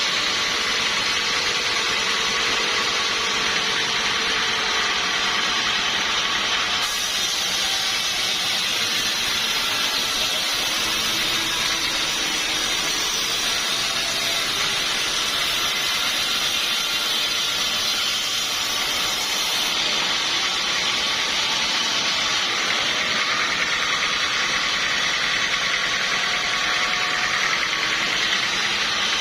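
Sawmill machinery running steadily, a continuous loud mechanical noise with a brighter hiss added for a stretch in the middle.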